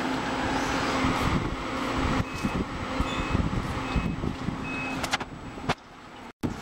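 Munich S-Bahn class 423 electric train standing at the platform with its steady hum, sounding four short, evenly spaced high door-closing warning beeps, followed by a couple of knocks. The sound cuts off abruptly near the end.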